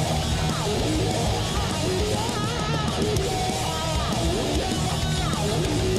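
Heavy metal band playing: distorted electric guitars, bass and drums, with a higher lead line that bends and wavers in pitch.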